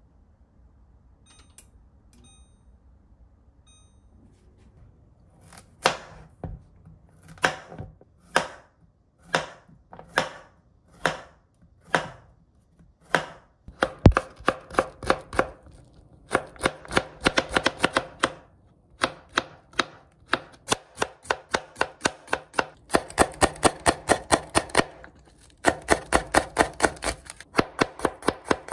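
Kitchen knife chopping on a cutting board, starting a few seconds in with slow single strokes about one a second, then speeding up into quick runs of several strokes a second from about halfway through.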